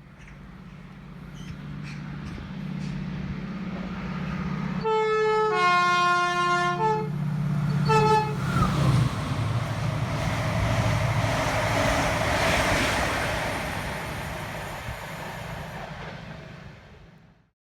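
A British train's two-tone horn sounds about five seconds in: a higher note, then a longer lower note, then two short higher toots. The train's low engine hum is heard as it approaches, and as it passes a loud rush of wheel and rail noise swells and then fades away.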